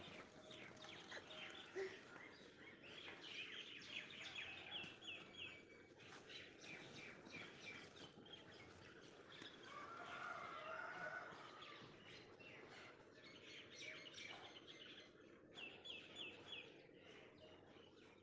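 Faint background birds chirping. Two quick runs of four short chirps come about five seconds in and again near the end, with a lower bird call around the middle.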